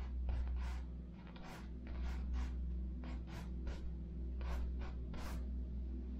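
Paintbrush strokes on canvas: about a dozen short, scratchy swishes in an irregular rhythm, over a steady low hum.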